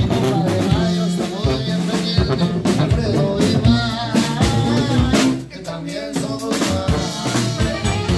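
Live norteño band playing: button accordion carrying the melody over bajo sexto, drum kit and tuba, with a steady beat. The music drops out briefly about five and a half seconds in, then comes back.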